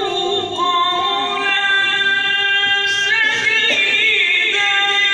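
Melodic Quran recitation (tilawat) by a male reciter: long sustained notes with ornamented, wavering pitch turns about three to four seconds in.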